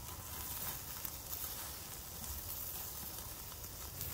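Meat kebab skewers sizzling steadily over the flames of a gas grill.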